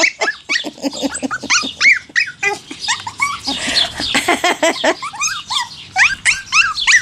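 Maltipoo puppies yipping and squealing while they play-wrestle: a rapid, busy run of short high-pitched yips from several puppies at once.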